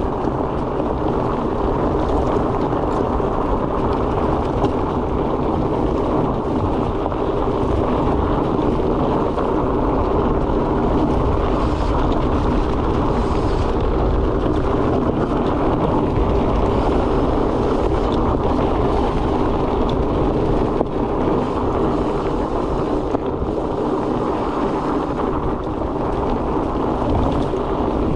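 Steady wind rushing over the microphone together with the rolling rumble and low hum of fat-bike tyres on a dirt fire road.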